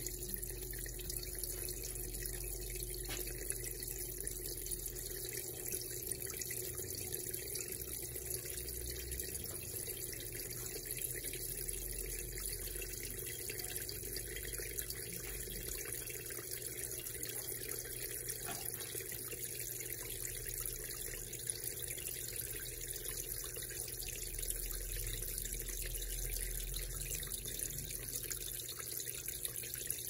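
Brastemp Eggo mini washing machine slowly filling with water for its rinse: a steady, unbroken run of water pouring into the tub.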